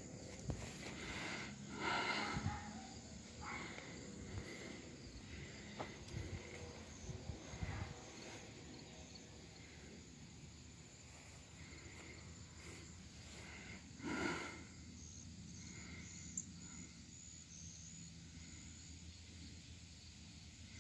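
Faint outdoor ambience with faint high insect chirps now and then, and brief louder rustles about two seconds in and again about fourteen seconds in. The minibike's engine is not running.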